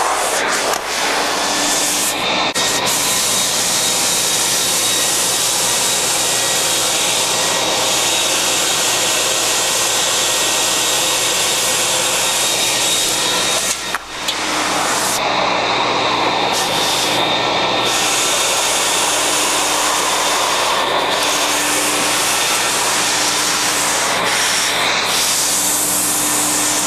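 Ruwac WS2320 240-volt single-phase industrial vacuum running steadily and loudly while its 20-inch floor tool sucks glass bead media off a concrete floor and out of the cracks. The sound dips briefly about halfway through.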